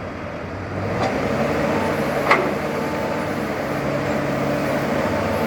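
AX124 backhoe loader's diesel engine running steadily, getting louder about a second in. A single sharp click sounds a little past two seconds.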